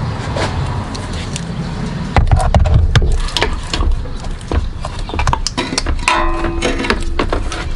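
Light clicks and knocks of metal parts being handled as a replacement engine mount is worked into place in the engine bay, with a short pitched tone about six seconds in.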